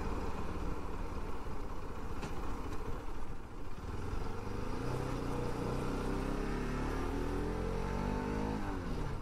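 Motorcycle engine running as the bike pulls away from low speed, its pitch climbing steadily from about halfway through, dipping briefly near the end and then climbing again, under a low wind rumble on the microphone.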